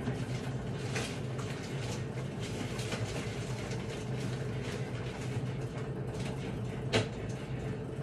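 Steady low appliance hum in a kitchen, with scattered light clicks and taps of food being handled and packed away, and one sharp knock about seven seconds in.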